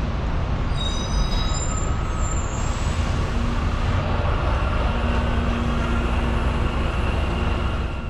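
Tour bus driving in city traffic: a steady low rumble of engine and road noise, with a brief high-pitched squeal about a second in and a faint whine later on.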